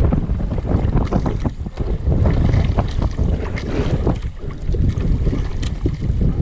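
Wind buffeting the microphone over choppy sea, with water slapping in short splashes against a small outrigger boat.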